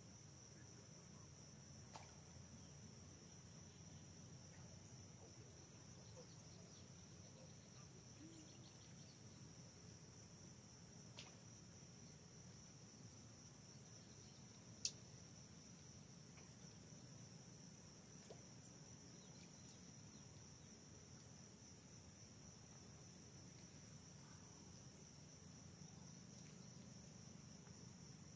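Faint, steady high-pitched insect chorus trilling on two pitches, with a sharp click about halfway through and a couple of fainter clicks.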